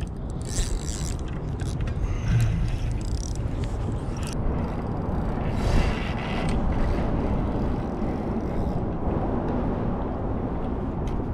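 Penn spinning reel being cranked in short bursts while a hooked fish is reeled in, over a steady low rumble.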